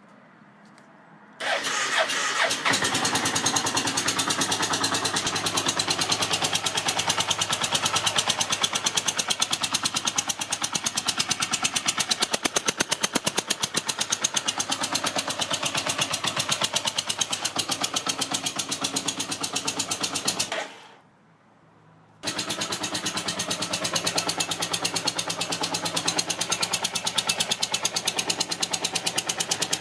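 Yamaha TDM 850 parallel-twin motorcycle engine starting up about a second and a half in, then idling with an even, pulsing beat. The sound drops away for about two seconds past two-thirds of the way, then the idle returns abruptly.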